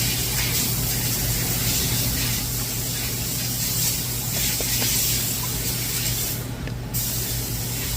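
A steady spraying hiss that breaks off briefly about six and a half seconds in, over a low steady hum.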